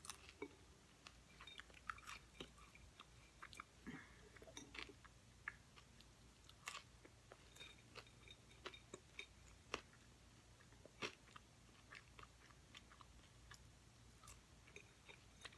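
Faint chewing and wet mouth clicks of a person eating a baked Tofurky broccoli and cheddar pocket, with scattered soft ticks throughout.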